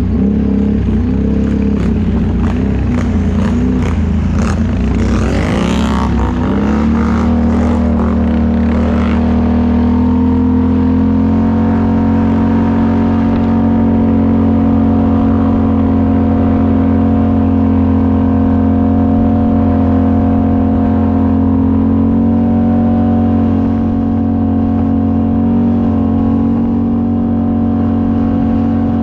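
ATV engine revving up and down with a scattered clatter over the first several seconds, then held at a steady pitch for the rest of the time.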